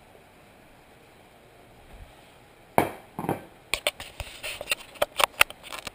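Quiet room tone, then nearly three seconds in a sudden knock, a second about half a second later, and a quick run of sharp clicks and taps: hands handling and fumbling at a head-mounted camera's housing.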